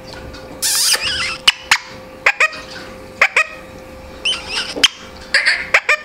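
Indian ringneck parakeet calling: a rough squawk about half a second in, then a string of short, sharp clicking calls with quick falling pitch.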